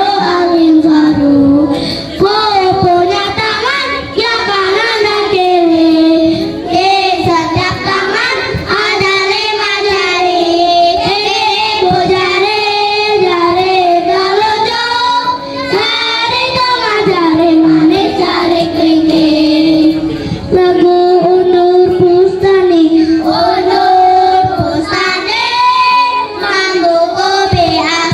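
A group of children singing a song together in unison, amplified through a stage sound system. One melody runs on without a break.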